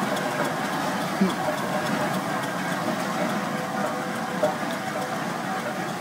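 Steady mixed engine noise from a steam ploughing engine moving off along the road with a small car's engine running close behind it. Two short sounds, likely brief voices, rise above it about a second in and again about four and a half seconds in.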